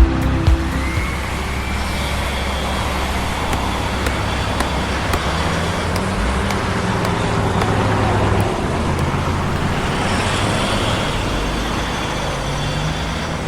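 Road traffic noise: a steady rush of passing vehicles, fairly even in level throughout.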